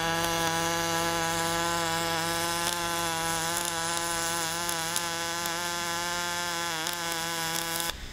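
MIG welding arc laying the cap pass around a pipe socket at about 180 amps, a steady buzz that cuts off near the end as the arc is stopped.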